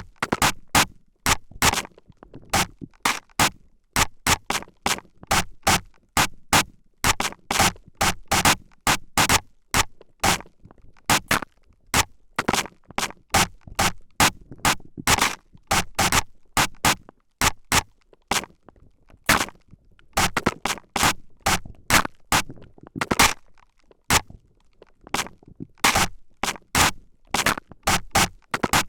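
Spray bottle spritzed rapidly and irregularly close to the microphone, about two or three short sprays a second.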